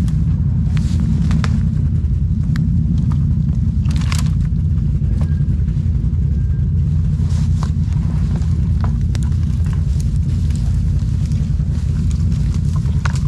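Can-Am ATV engine running steadily under way, a dense low rumble with no revving, with scattered small clicks and crackles over it.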